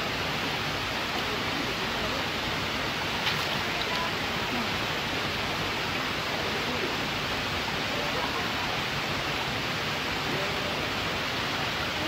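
Steady rushing of a small waterfall, an even hiss of falling water, with a single short click about three seconds in.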